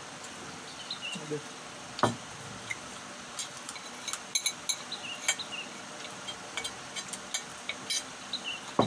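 Tableware clinking and scraping as people eat by hand and with a spoon from ceramic plates and bowls: scattered light clicks, with two sharper knocks about two seconds in and near the end.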